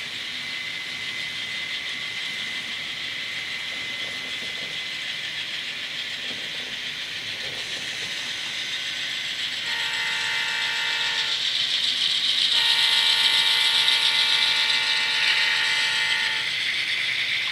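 Model train running on the layout's track, a steady whir of wheels on rails that grows louder as the cars pass. A model diesel locomotive's sound-effect horn sounds twice: a short blast about ten seconds in, then a longer one.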